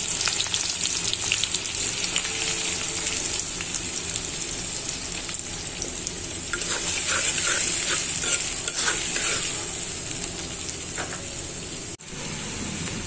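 Chopped onion sizzling and crackling in hot oil in a black iron kadai, with a few short scrapes of stirring about halfway through.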